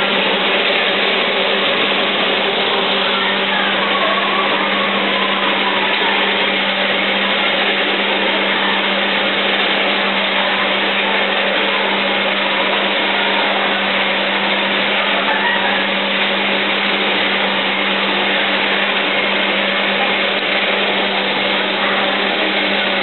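Mechanical taffy-pulling machine running as it stretches and folds salt water taffy: a steady motor whir with a constant low hum.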